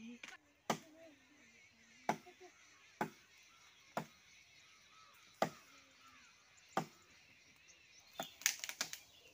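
Chopping blows into a neem branch high in the tree, one sharp strike about every second to second and a half, then a quick run of sharper cracks near the end.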